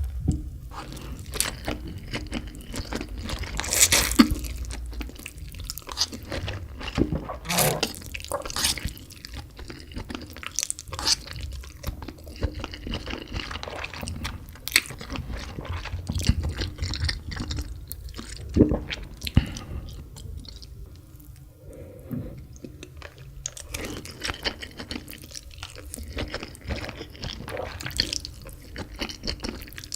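A person chewing spicy instant noodles close to the microphone: irregular wet smacking and crunchy mouth sounds, with a few louder bursts.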